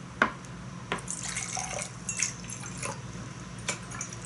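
Tea being poured into a cup, with a trickle, drips and small clinks of crockery over a faint steady low hum.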